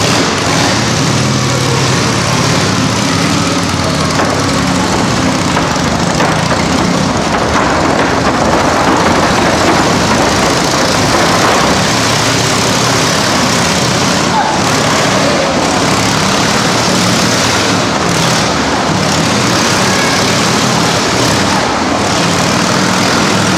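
Vintage 1920s Indian V-twin motorcycle running steadily at speed as it laps the wooden Wall of Death.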